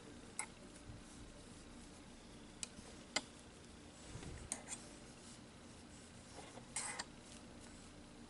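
Faint handling sounds of crocheting by hand: an aluminum crochet hook working yarn, with a few light clicks at irregular intervals and a small cluster of them near the end, over quiet room tone.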